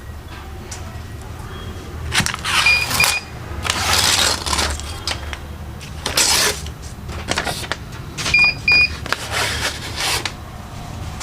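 Rustling and clinking as the freshly pressed sublimation keychains and release sheet are handled, with a pair of short electronic beeps about three seconds in and again near the end, over a low steady hum.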